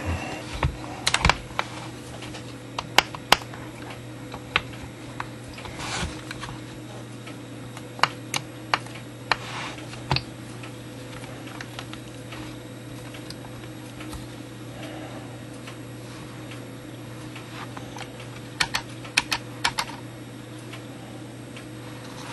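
Scattered light clicks and knocks of an Eli Terry wooden clock movement being handled and taken apart, its wooden plates, wheels and pegs tapping against each other in short clusters.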